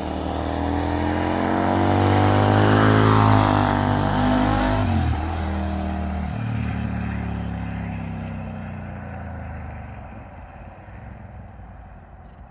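2001 Suzuki VZ800 Marauder's 805 cc V-twin engine on a motorcycle riding past. It grows louder as the bike approaches, drops in pitch as it goes by about three to four seconds in, then fades into the distance.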